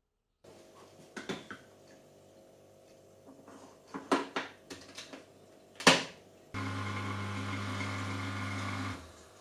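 A few kitchen knocks and clicks, the loudest about six seconds in, then a small electric kitchen appliance runs with a steady hum for about two and a half seconds and switches off.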